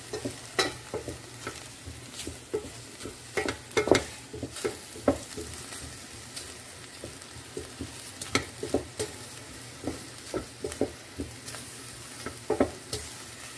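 Wooden spoon stirring and scraping chopped onions in a metal pot on the stove: irregular scrapes and knocks over a soft, steady sizzle as the onions cook for doro wat.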